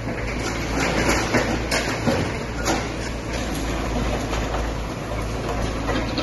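Demolition by excavator: heavy machinery running under a steady low rumble, with scraping and several sharp crashes of breaking structure in the first three seconds.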